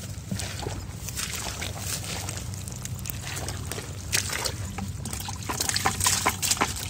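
Water trickling and dripping from a woven basket of small climbing perch, then a quick run of small splashes and wet patters from about four seconds in as the fish are tipped into a bucket of muddy water. A steady low hum runs underneath.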